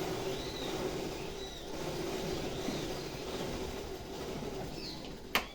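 A steady mechanical rumble with a held low hum swells and fades, with small birds chirping faintly over it. A single sharp click comes near the end.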